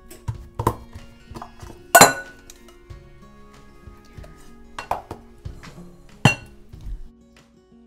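Metal loaf pan clinking and knocking against a stone countertop as it is handled, four or so sharp knocks with the loudest about two seconds in. Soft background music runs underneath.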